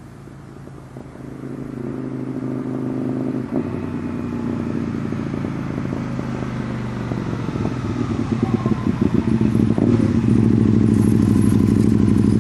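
2008 Can-Am Spyder's Rotax V-twin running through an MBRP carbon-fibre slip-on exhaust as the three-wheeler rides up toward the microphone. The exhaust note grows steadily louder, ending loud and pulsing close by.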